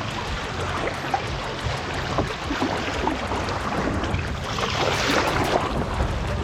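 Boat-wake waves slapping and splashing against a kayak's hull as it rides over them, the splashing strongest about five seconds in.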